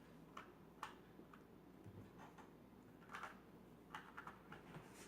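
Faint, irregular plastic clicks of a Rubik's cube's layers being twisted by hand, a few clicks a second with short gaps.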